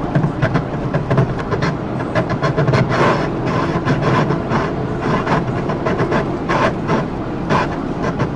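Police cruiser driving hard at high speed. A steady drone of engine, tyres and wind runs under a rapid, irregular string of knocks and thumps, with no siren wail.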